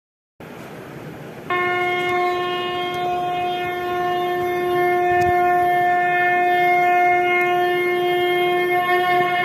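One long note held at a single steady pitch, rich in overtones, starting about a second and a half in over a faint hiss: a sustained horn-like drone opening a devotional track.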